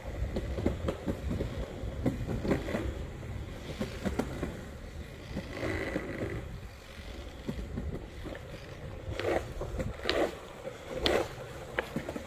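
Skateboard wheels rolling fast over smooth laser-leveled concrete: a steady low rumble, with a few sharp clacks in the last few seconds.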